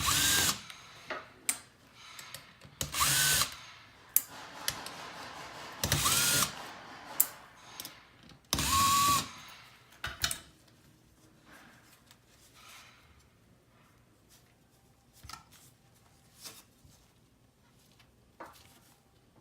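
Small power screwdriver whirring in four short bursts about three seconds apart, the motor whine rising and dropping each time, as it backs out the screws holding the outer cover of a car navigation unit. Faint clicks of small parts being handled follow.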